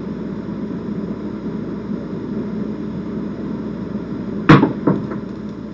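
Pair of dice thrown down a craps table: about four and a half seconds in they strike the table with one sharp, loud clack, followed by a couple of lighter clicks as they bounce and settle. A steady hum sits underneath.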